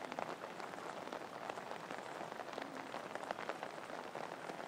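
Water spattering onto a surface, a dense patter of many small drops and ticks, like rain, on a wet soapy trampoline.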